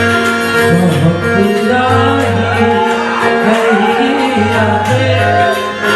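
Gujarati folk-style music led by a benjo (Indian keyed banjo) melody over a drum accompaniment and a repeating low bass.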